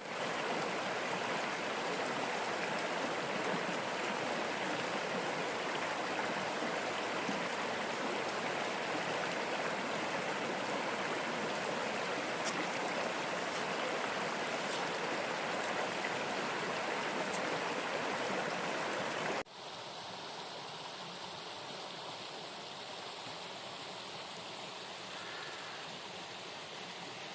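River water rushing steadily. About two-thirds of the way through it drops suddenly to a quieter, softer flow.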